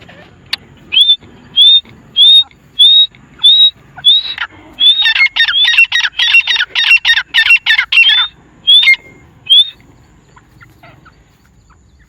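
Grey francolins calling: a string of loud rising notes about every half second, then several birds calling at once in a fast, overlapping run for about three seconds, ending with two single notes.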